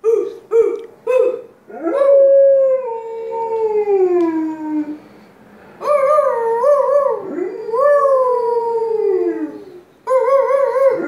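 A dog howling: three short notes at first, then long howls that slide down in pitch, with shorter wavering notes between them.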